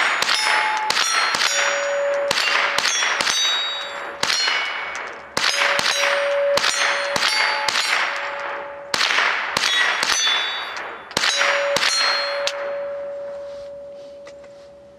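Steel targets clanging and ringing under rapid fire from a Ruger 10/22 .22 rimfire rifle. Hits come several a second in quick strings, each leaving a metallic ring. After the last strings, about twelve seconds in, a ring slowly fades out.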